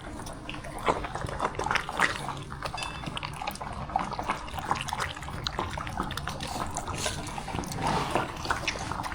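Dogs eating freeze-dried food softened with soup and milk from bowls: irregular wet lapping and chewing with small clicks.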